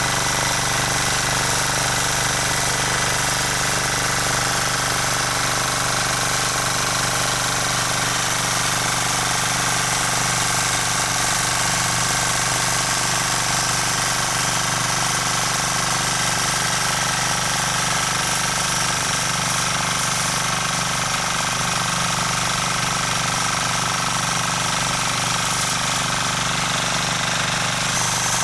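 Rotakt walk-behind rotary tiller's small engine running steadily while its tines till the soil.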